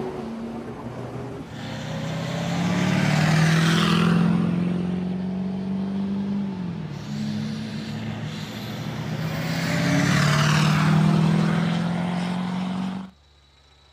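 Oshkosh JLTV's diesel engine running as the vehicle drives by on a dirt road, with engine and tyre noise swelling twice as it passes close. The engine pitch dips about halfway through, and the sound cuts off abruptly near the end.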